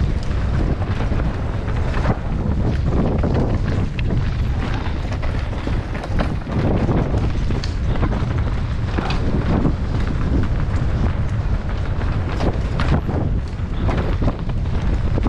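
Wind buffeting the camera microphone over the rumble of a mountain bike riding rough trail, with frequent rattles and knocks from the bike over rocks and roots.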